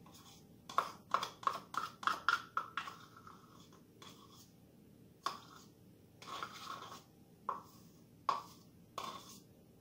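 A utensil scraping peanut butter out of a plastic measuring cup and tapping it against the rim, in a quick run of short scrapes over the first three seconds, then a few scattered scrapes and taps.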